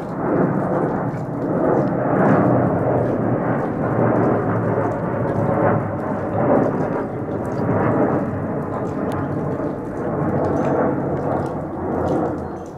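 Twin-engine Embraer regional jet passing overhead on landing approach, gear down: a continuous deep jet rumble that swells and eases in waves.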